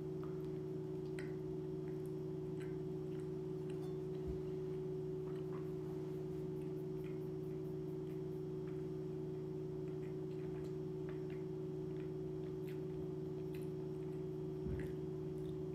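Steady low hum, with faint scattered clicks and mouth sounds of a man chewing a sandwich.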